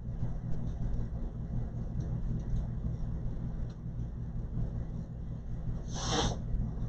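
Compressed air being used to clean out a MacBook Air's cooling fan: a steady low mechanical hum, with one short, loud burst of air hiss about six seconds in.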